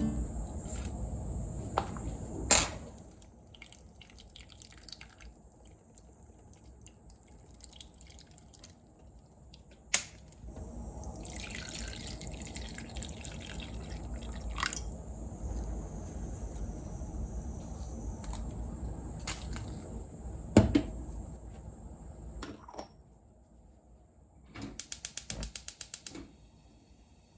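Kitchen work sounds: scattered clinks and taps, a short run of water into a sink, and a quick run of rapid clicks near the end.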